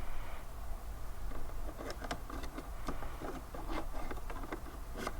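Scattered small clicks and taps of RAM modules being handled and fitted into the iMac's memory bay, over a low steady hum.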